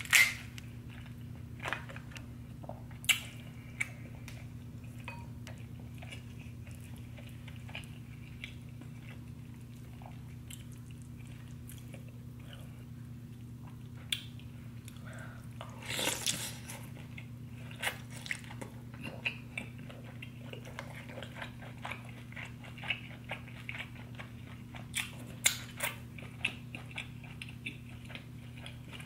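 Close-miked chewing and biting of buttery deshelled seafood: many short wet clicks and mouth sounds, with a louder cluster about sixteen seconds in. A steady low hum runs underneath.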